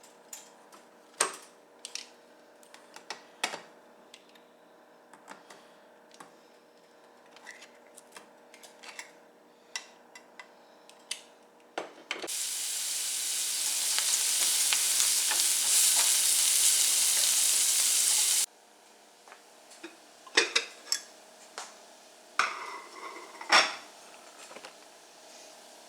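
Diced onions sizzling in a hot frying pan: a loud, even sizzle starts suddenly about twelve seconds in, runs about six seconds and cuts off sharply. Before and after it, scattered clinks and knocks of a utensil against the pan.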